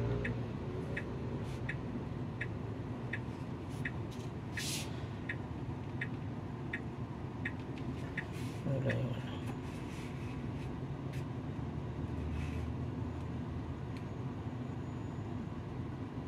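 Tesla turn-signal indicator ticking steadily, about one and a half clicks a second, over low cabin road noise as the car prepares to turn right. The ticking stops about seven and a half seconds in, leaving only the road noise.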